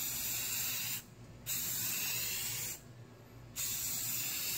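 Rust-Oleum deep forest green spray paint can hissing in three bursts of about a second each, with short pauses between them.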